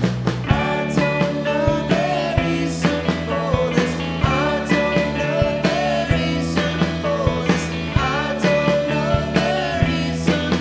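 Indie rock band playing live: two electric guitars, bass guitar and a drum kit keeping a steady beat, with a sung lead vocal.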